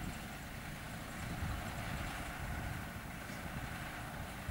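Diesel cane-train locomotive idling while standing still, a steady low rumble.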